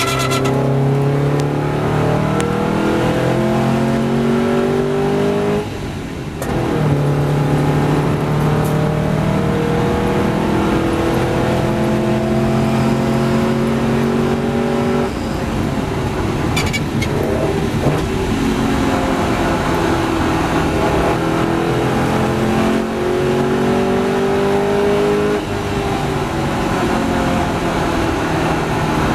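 1954 Porsche 550 Spyder's four-cam flat-four engine at racing speed, repeatedly rising in pitch as it accelerates and dropping back at each gear change. The driver lifts off the throttle briefly about six seconds in.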